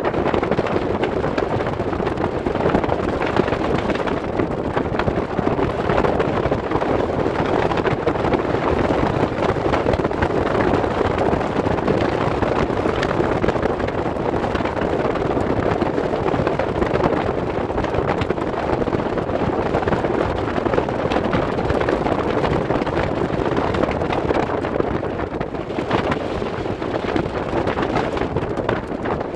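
Steady wind rushing over the microphone on the open deck of a passenger ferry under way, mixed with the ferry's even running noise.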